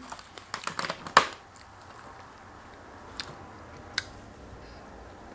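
A fork clicking and scraping in a plastic clamshell container while strawberry shortcake is scooped, in a quick cluster of clicks over the first second or so, then a couple of single clicks. A bite is taken and chewed close to a lapel microphone.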